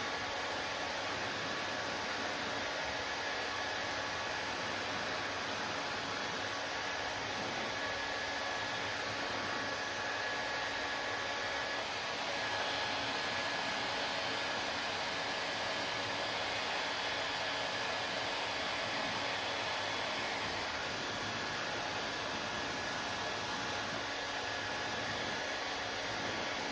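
Steady, unchanging rushing noise with a faint steady whine in it, like an air blower or fan running continuously.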